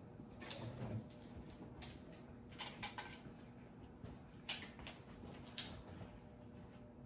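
Someone rummaging for the next item: faint rustling with a few light knocks and clicks scattered at irregular intervals, a quick run of them about three seconds in.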